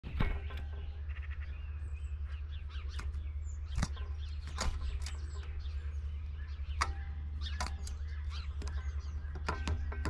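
Great spotted woodpecker pecking at food at a bird feeder: irregular sharp knocks, with short high bird chirps and a steady low rumble underneath.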